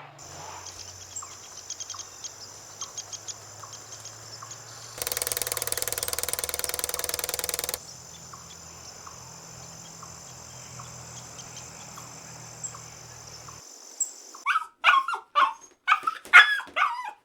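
An animal yapping: a quick run of about eight short, high calls near the end. Before them is a steady low hum with faint ticks, with a louder noisy stretch of a few seconds partway through.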